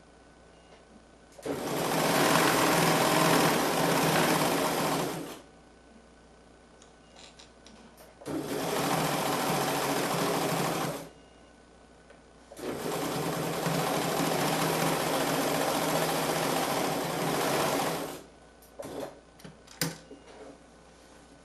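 Bernina 940 sewing machine running in three bursts of stitching, each a few seconds long, with short pauses between. A few light clicks follow near the end.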